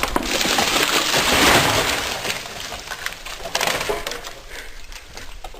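Tree crashing down, with branches and wood breaking as it falls. The crash is loudest in the first two seconds, then dies away into scattered snaps and cracks.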